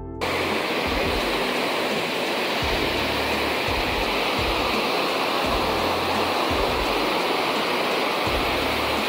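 A river in flood: fast, swollen brown water rushing in a steady, loud roar, with irregular low rumbles underneath.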